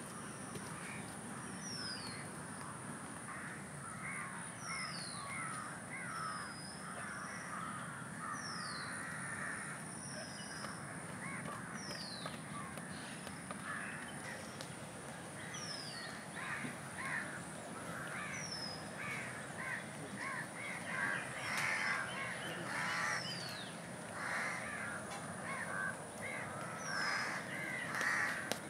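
Crows cawing among other birds, busier and louder in the second half, while another bird gives a clear downward-sliding whistle every second or two. A steady high insect drone runs underneath.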